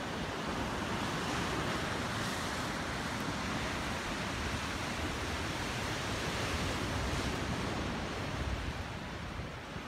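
Ocean surf breaking on rocks below a cliff, a steady wash of noise, with wind rumbling on the microphone.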